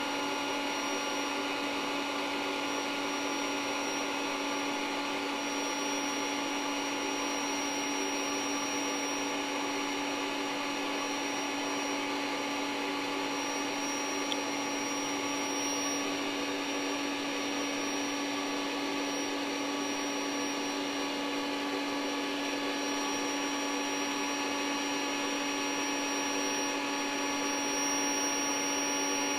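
The built-in electric pump of a SoundAsleep Dream Series queen air mattress running steadily as it inflates the bed: a constant motor hum with a strong low tone, growing slightly louder near the end.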